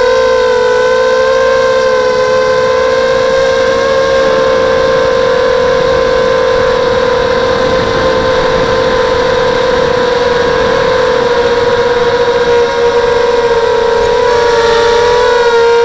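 Brushless motors of an ADS Spanky FPV quadcopter (four SunnySky X2204 2300KV motors on 5x3 props) in flight, picked up by the onboard camera: a loud steady whine with several overtones, its pitch wavering slightly. Near the end the pitch shifts and the whine turns harsher as the quad banks.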